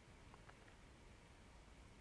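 Near silence: faint room tone, with two very faint ticks about half a second in.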